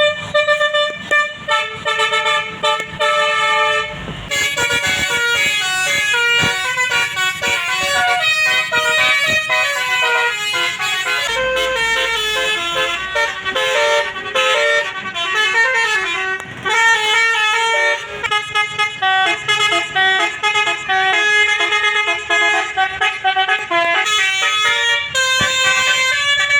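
Basuri multi-note musical air horn (telolet) on a bus playing a quick tune of changing notes, ending on a long held chord.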